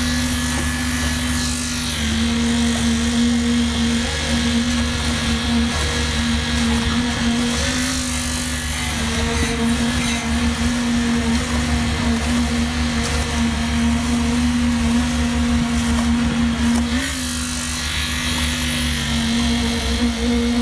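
Internal needle (poker) concrete vibrator running immersed in fresh concrete, a steady motor hum that wavers in pitch now and then as it is worked through the mix, with a low rumble beneath. It is compacting the concrete, shaking out entrapped air.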